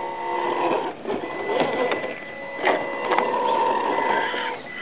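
Electric motor and gearbox of a radio-controlled rock crawler whining as it climbs over granite boulders, the whine stopping and restarting with the throttle. Sharp knocks a little past halfway as the tyres and chassis strike the rock.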